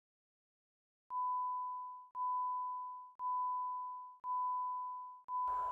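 Level crossing warning bell ringing, a single high ding struck about once a second, each stroke fading before the next; it starts about a second in, five strokes in all.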